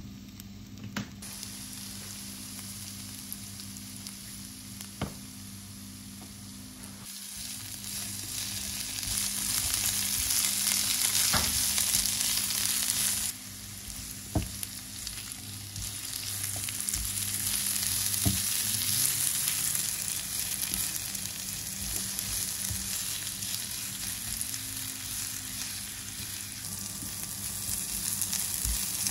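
Zucchini strips sizzling in oil in a nonstick frying pan, stirred with a silicone spatula that gives occasional light taps against the pan. The sizzle swells about a quarter of the way in, drops off suddenly near the middle, then builds again as the zucchini browns.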